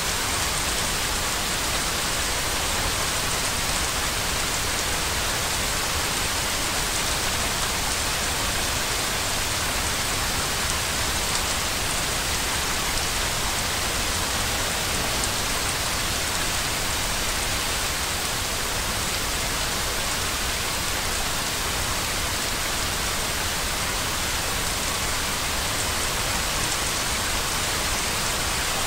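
Steady white noise of the kind played to help a baby sleep: an even, unchanging hiss, brighter in the upper range, with no breaks or changes.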